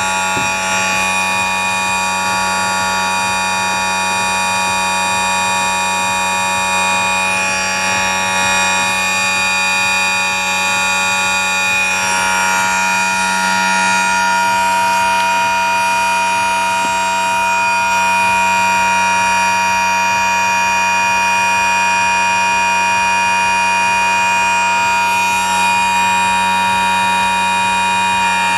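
Brushless motor on a dyno test bench, driven by an electronic speed controller at 50% throttle and about 50 A, running with a steady whine made of several high pitches from the PWM-chopped phase voltage.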